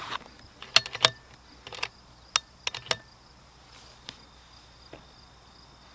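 Several sharp clicks and knocks in the first three seconds as an ammunition box and gear are handled on a wooden shooting bench. Behind them, crickets chirr steadily at a high pitch.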